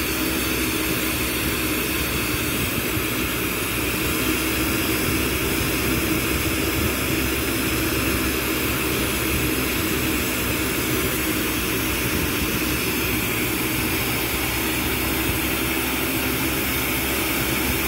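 Glassblowing torch running with a steady rushing noise as the glass is held in the flame, with a fan running behind it.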